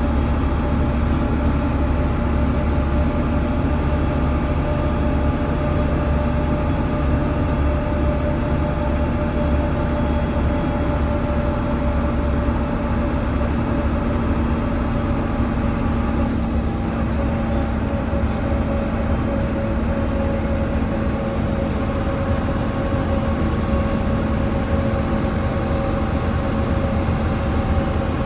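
MAN NL202 city bus's diesel engine running at a steady speed, a deep rumble with a steady drone over it, heard from inside the passenger cabin.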